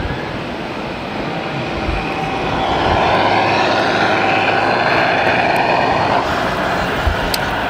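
Scale RC trucks driving by with a steady engine-like drone that swells for a few seconds in the middle as one passes close, then eases off; a single sharp click near the end.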